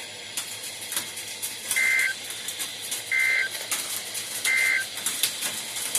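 NOAA Weather Radio EAS End-of-Message signal: three short, identical digital data bursts about a second apart, marking the end of the severe thunderstorm warning broadcast. Beneath it runs radio static with scattered sharp crackles.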